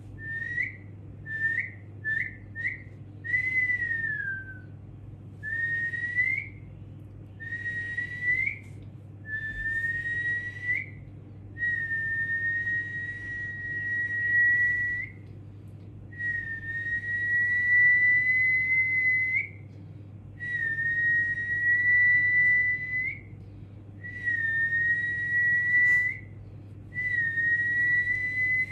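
A person whistling a series of notes at much the same pitch, to catch a baby's attention: a few short quick whistles at first, one sliding down, then long held notes of a few seconds each that turn slightly upward at the end.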